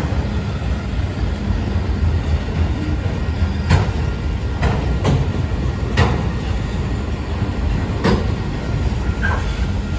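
BNSF autorack freight train rolling past with a steady low rumble, broken by five sharp knocks from the wheels and cars between about four and eight seconds in.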